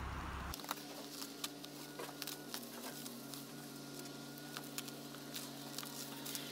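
Plastic wrapping crackling in many short sharp clicks as it is peeled and pulled off a boxed hydroponic kit, over a faint steady hum.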